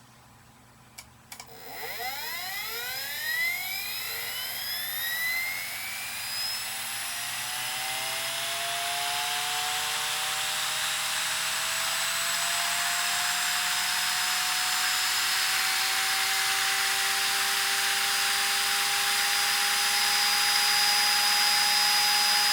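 CD-ROM drive spindle motor with a CD mounted, driven by a three-phase speed controller, spinning up. After a few clicks, about a second and a half in, a whine sweeps quickly up in pitch, then keeps climbing slowly and grows steadily louder as the disc gathers speed.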